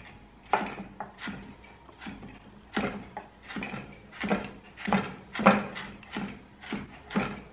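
Kitchen knife chopping onion on a wooden cutting board, with uneven cuts about one or two a second.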